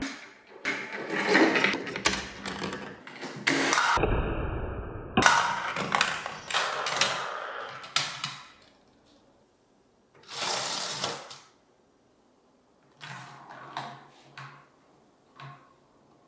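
Marbles rolling and clattering down a VTech Marble Rush plastic marble run, with rattling runs and sharp clicks as they drop and hit the track pieces; a brief steady tone sounds about four seconds in. The clatter dies away at about nine seconds, comes back in a short burst at about ten seconds, and ends in a few softer clacks.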